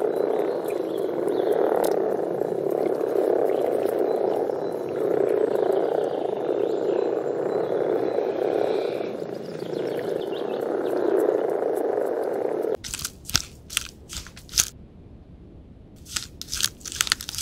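A dense, steady chorus of frogs calling, which cuts off suddenly about 13 seconds in. A few short, sharp clicks and crunches follow in two small clusters with a quiet gap between them.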